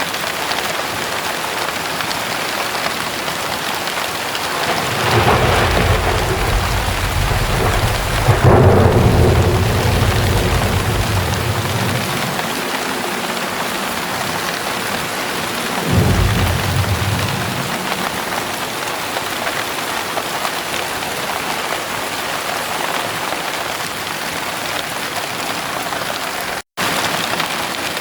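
Heavy rain pouring steadily, with a long roll of thunder building about five seconds in, peaking in a sharp crack near nine seconds and rumbling on for a few seconds more, then a second, shorter rumble a few seconds later.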